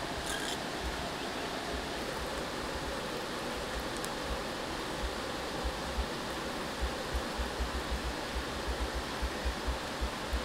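Steady rush of flowing river water, with irregular low thumps that come more often in the second half.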